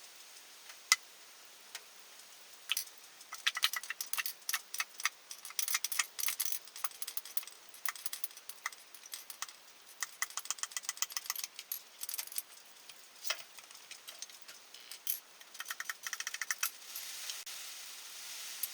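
Hand tools working on metal engine parts: bursts of rapid, even ratchet-wrench clicking among scattered sharp metal clinks and rattles.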